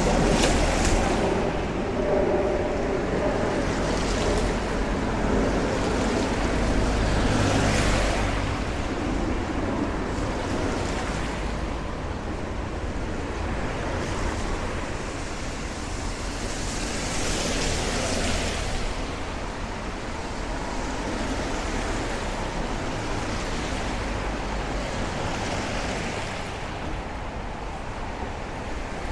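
Cars passing on a wet road: the hiss of tyres on the rain-soaked surface swells and fades several times over a steady low rumble of traffic.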